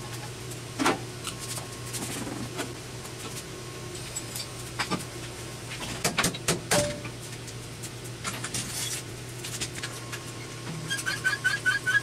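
Metal clanks and knocks of tools, jack and parts being handled while a jeep is jacked up and its wheels removed, scattered irregularly over a steady low hum. Near the end comes a quick run of short squeaky chirps.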